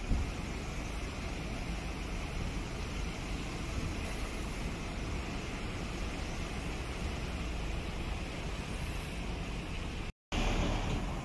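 Steady street traffic noise, a low rumble with a hiss over it. It drops out for a moment near the end, then comes back a little louder.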